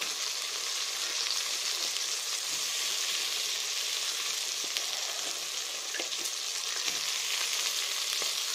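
Raw crab pieces sizzling as they go into hot oil and masala in a metal wok on a low flame: a steady frying hiss, with a few faint clicks as the shells land in the pan in the second half.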